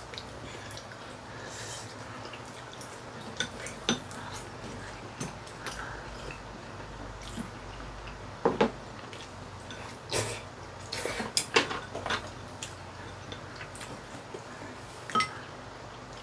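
Chopsticks and spoons tapping and scraping on porcelain bowls and a pan during a meal: scattered small clicks, with a few sharper clinks about halfway through and again near the end.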